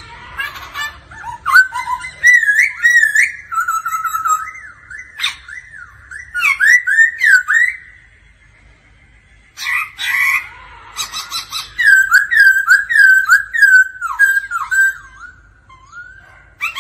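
Black-throated laughingthrush singing: quick strings of clear whistled notes that slide up and down, in two long phrases with a pause of about a second and a half between them.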